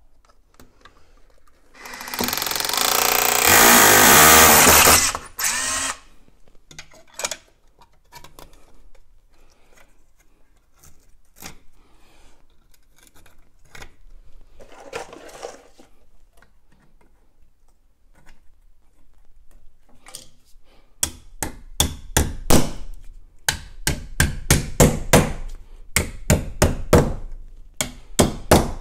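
Hammer drill boring into hollow clay brick for about four seconds, its motor note clear under the grinding. After a stretch of small clicks and handling, a fast run of about twenty sharp knocks near the end, a tool tapping at the back box fixed to the wall.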